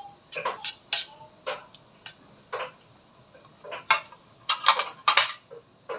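Metal spoon clinking and scraping against a stainless steel tray while stirring a liquid marinade: a string of light, irregular clinks, the loudest coming close together near the end.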